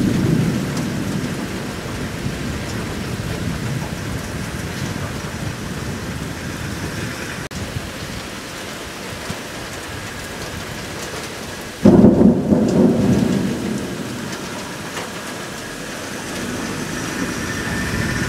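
Thunderstorm: steady rain, with a roll of thunder dying away at the start. About twelve seconds in, a sudden loud thunderclap breaks and rumbles off over a couple of seconds.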